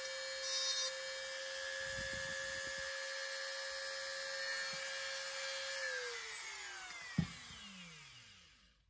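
Dremel rotary tool running with a steady high-pitched whine while its bit is held against a small toy part. It is switched off about six seconds in, and the whine falls in pitch as it spins down. A single knock about seven seconds in.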